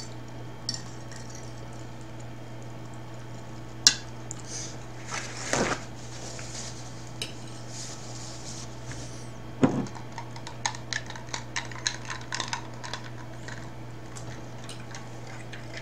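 A metal fork clinking and scraping on a ceramic dinner plate while eating, in scattered sharp clicks with a quicker run of light clicks in the last few seconds. A steady low hum sits underneath.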